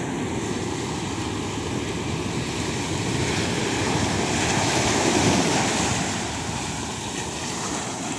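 Ocean surf washing and breaking on the beach, a steady rush of water that swells louder about halfway through and then eases.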